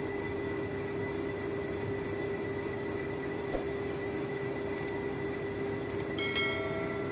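Large metal lathe running as it turns a big steel workpiece, a steady hum with a higher steady whine. A couple of clicks and a short chime sound near the end.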